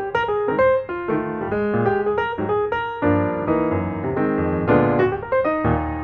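Background piano music, a quick run of single notes and chords.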